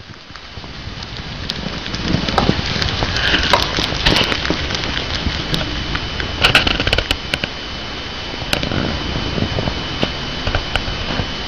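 Syrian hamster munching a crisp green vegetable close to the microphone: irregular crunchy crackles and clicks, thickest in two spells about three and seven seconds in, over a steady background hum.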